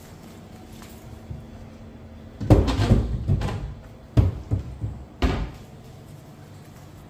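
A burst of bumps and clatter about two and a half seconds in, then three or four sharp knocks, the last about five seconds in.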